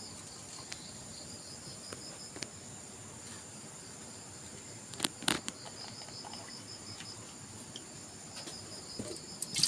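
Insects trilling steadily in a high, rapidly pulsing chorus. A couple of sharp knocks about five seconds in come from a plastic water jug being handled.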